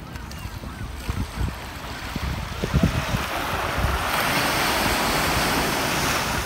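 Small waves lapping and washing up onto a sandy beach, the wash swelling about halfway through and holding. Wind buffets the microphone underneath.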